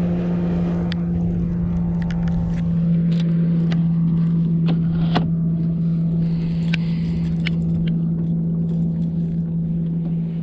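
Bow-mounted electric trolling motor running with a steady, even hum. Short clicks and knocks from handling the rod and baitcasting reel sound over it.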